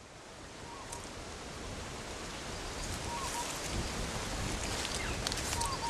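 Steady outdoor background hiss that fades in over the first couple of seconds, with three faint short chirps spaced about two seconds apart.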